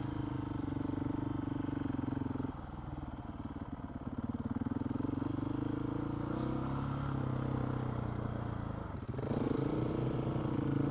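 Motorcycle engine running under way, its revs climbing and easing as the throttle is worked. The revs drop off sharply about two and a half seconds in, then climb again, and dip once more near the end before picking up.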